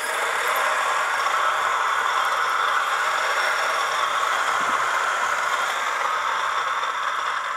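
Option-O Lagom P64 electric coffee grinder with 64 mm SSP multipurpose flat burrs grinding a dose of coffee beans: a steady, even whir with not much screeching, very quiet for these burrs.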